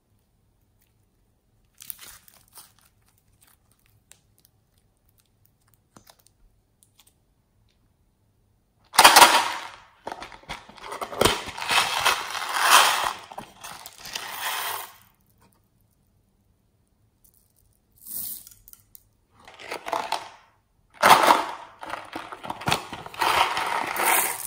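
A small cardboard box being torn open and handled, in loud bouts of crinkling and tearing from about nine seconds in. Near the end comes the clatter of small plastic beads being shaken out of the box. Before that there are only a few faint soft clicks.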